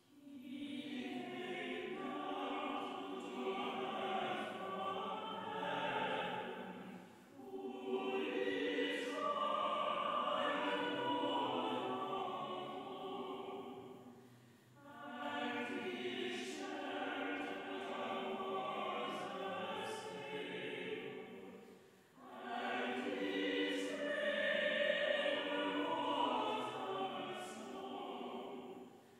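Choir singing a carol in four long phrases, with short breaks between them.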